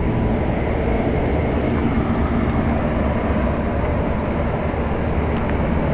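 Circa-1973 General Electric central air-conditioner condensing unit running steadily, its compressor and condenser fan giving an even low rumble.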